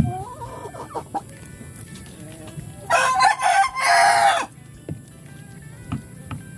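A rooster crows loudly once, about three seconds in, in two drawn-out parts lasting about a second and a half, with fainter chicken calls in the first second.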